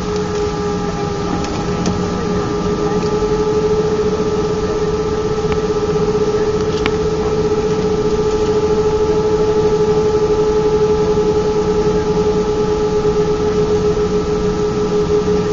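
Airbus A319's jet engines running at low thrust as the airliner taxis, heard inside the cabin: a steady hum with a few held whining tones, growing a little louder around the middle.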